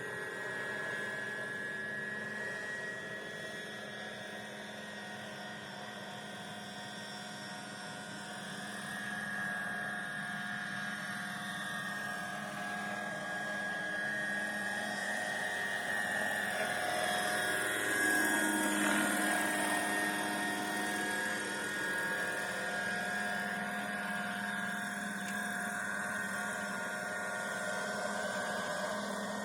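Radio-controlled Vario model helicopter in flight, its engine and rotors giving a steady whine. The pitch bends and the sound swells to its loudest about two-thirds of the way through as it passes close, then settles again.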